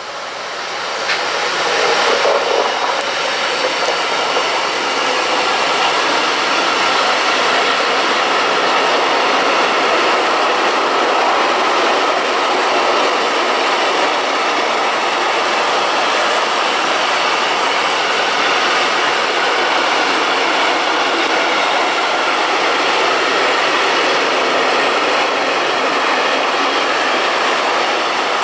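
Container freight train hauled by an electric locomotive passing close by: steel wheels rolling on the rails in a steady loud rush. It grows louder over the first two seconds, then holds steady as the wagons go by.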